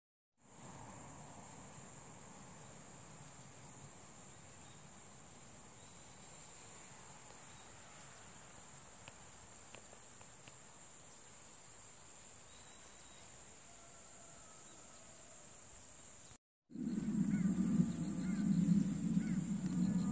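Steady high-pitched chorus of insects singing. After a cut about 16 seconds in, a louder low rumble joins it.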